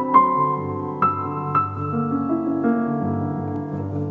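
Slow piano music: single melody notes struck one at a time, a second or so apart, over held lower chords.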